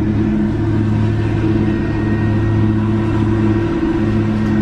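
Steady low hum of a car idling, heard from inside its cabin.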